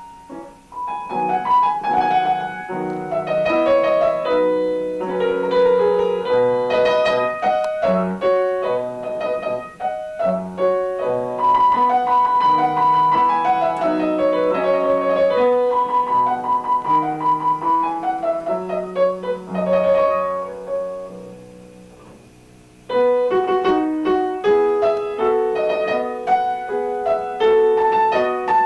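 Solo piano playing a classical-style piece. The notes die away about twenty seconds in, and playing starts again a couple of seconds later.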